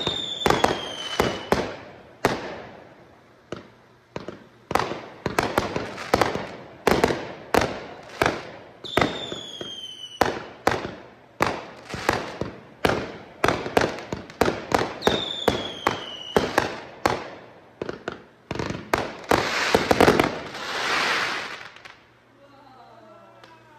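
Aerial fireworks going off in rapid volleys of launch thumps and sharp bursts, with a falling whistle three times. Near the end a hissing crackle swells, then the shots die away.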